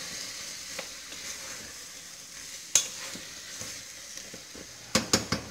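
Onion, tomato, meat and spices sizzling as they fry in oil in a stainless-steel pressure-cooker pot while being stirred, a steady high hiss. About halfway there is one sharp knock, and near the end a quick run of knocks.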